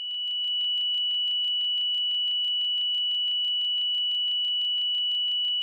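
A single steady, high, pure whine that holds one pitch near 3 kHz and never changes, with a faint, rapid, even pulsing, swelling up in the first half-second. This is the whine heard from some Dodge Dakota 3.9 and 2.5 engines in very cold weather; because the pitch does not follow engine speed, a bearing noise, most likely a Denso alternator bearing, is suspected.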